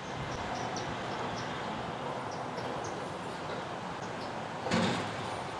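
Mack front-loading garbage truck running as it pulls up to a dumpster, a steady noise with short high chirps over it and a brief louder burst near the end.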